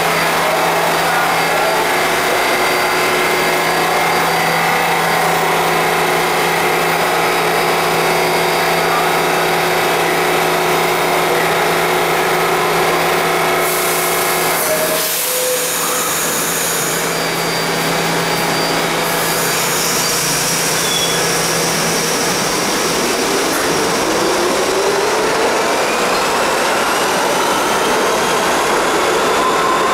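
R68 subway train standing at a station platform, its equipment giving a steady hum. About halfway through there is a burst of hiss. In the last third the train pulls out, its traction motors whining in a rising pitch as it gathers speed.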